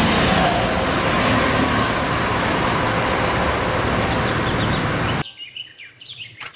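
City bus driving past and pulling away: steady engine and road noise, with birds chirping over it in the second half. The bus sound cuts off suddenly about five seconds in, leaving only the chirping.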